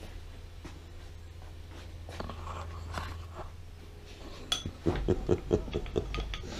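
A steady low hum, then, in the second half, a quick run of knocks and clinks, like metal tools or parts being handled.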